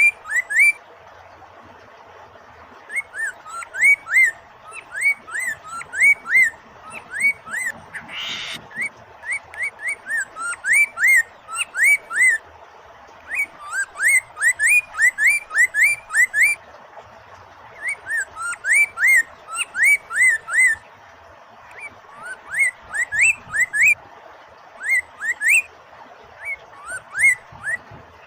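Poksay mandarin (a laughingthrush) singing: phrases of quick, short whistled notes that flick up and down, broken by short pauses, with one brief harsh rasp about eight seconds in. Steady flowing water runs under it.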